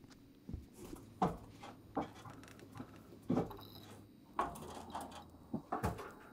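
Footsteps thudding on attic plywood floorboards, a series of irregular heavy steps about a second apart.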